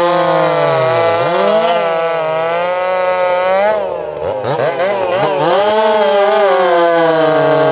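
Two-stroke chainsaw engine running at high revs under load. Its pitch sags and recovers several times as it bogs in the cut, with the deepest, wobbling dip a little past halfway.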